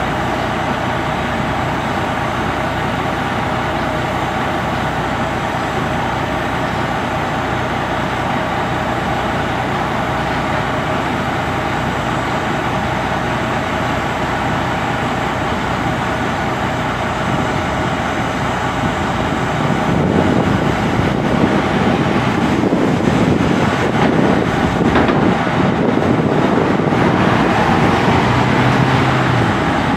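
Heavy diesel engine running steadily. From about 20 seconds in, a car passing close by adds louder road noise.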